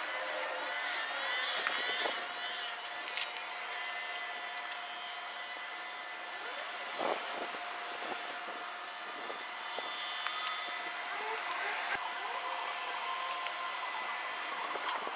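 Outdoor background sound sped up sixfold: a steady high hiss with a faint steady tone, a few sharp clicks and brief high gliding sounds near the start.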